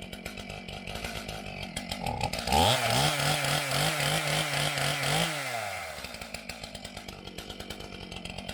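Two-stroke chainsaw idling, then revving up about two and a half seconds in, holding high for about two and a half seconds and dropping back to idle.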